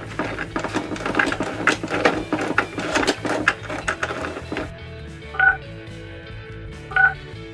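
Plastic play-food and toy parts clattering as they are handled, then two short electronic beeps from a toy cash register scanner, over soft background music.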